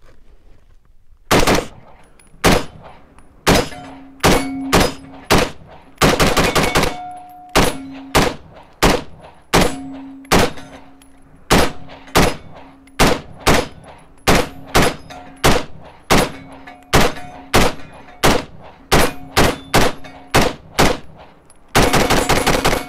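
Stag Arms 3-Gun AR-15 rifle in 5.56 firing a long string of about thirty shots, starting about a second in, single shots and quick pairs, with a fast burst near the end. A ringing tone hangs after many of the shots.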